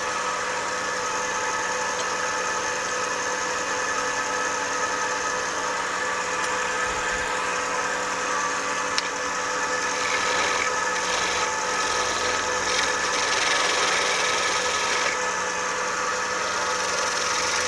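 Metal lathe running steadily with a wooden spoon blank turning on it. About ten seconds in, a turning tool cuts into the wood in short scraping passes for several seconds.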